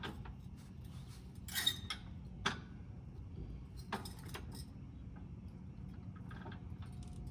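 Metal clinks and knocks of tools and hardware being handled. A cluster of clinks comes near the two-second mark, a sharp knock follows soon after, and two more come about four seconds in, over a steady low background rumble.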